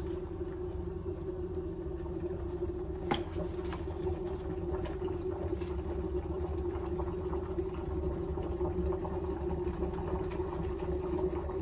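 Electric kettle heating water: a steady low rumble and hum, with a few light clicks and rustles as a tea bag is unwrapped and dropped into a mug.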